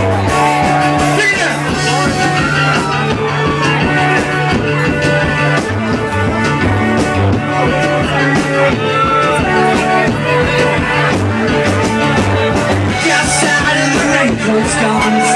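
Live rock band playing loud, amplified, with a singing voice over electric guitar, bass and drums, heard through the crowd.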